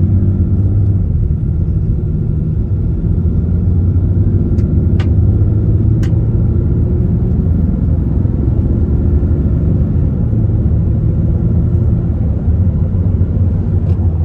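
Ram 3500's 6.7-litre Cummins inline-six turbo-diesel running under load as the truck drives, a steady low drone. Two faint clicks come about five and six seconds in.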